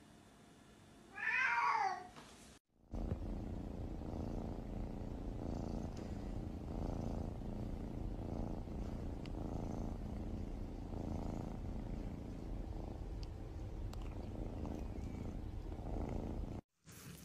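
A cat gives one short meow about a second in. Then a kitten purrs steadily and close up, in slow even pulses, while being petted under its chin.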